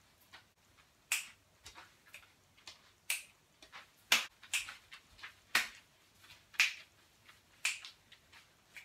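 Sharp snaps and claps of the hands in a loose beat, roughly one a second, with quicker ones in between.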